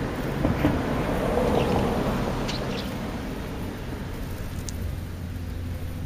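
Outdoor wind rumble on the microphone over a steady low hum of distant traffic, swelling slightly in the first two seconds, with a few faint, very short high sounds scattered through it.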